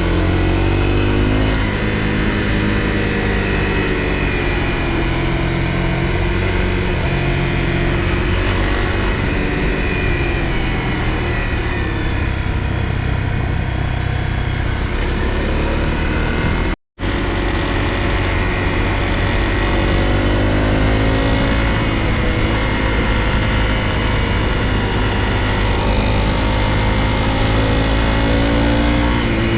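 Honda CRF250L's single-cylinder engine running under way, its pitch rising and falling as the rider opens and closes the throttle, over a steady rush of wind and road noise. The sound drops out for an instant a little past halfway.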